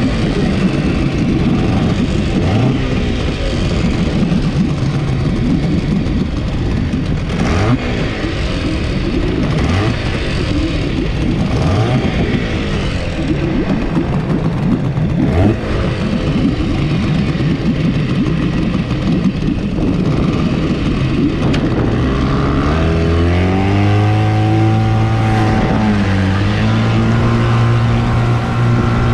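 Small Yamaha outboard motor on an inflatable boat, running unevenly at low speed under wind and splashing-water noise. About three-quarters of the way in it revs up and settles into a steady, higher pitch. The owner fears it will stall, having flooded it when he throttled back.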